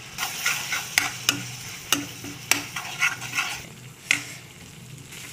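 A steel spoon stirs garlic and ginger paste into spiced onion masala frying in oil in a metal kadai. The masala sizzles, and the spoon clinks sharply against the pan about five times.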